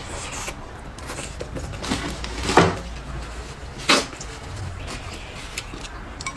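Person sniffing and blowing her nose into a paper tissue, heard close up: three short breathy blasts over about two seconds, the second the loudest.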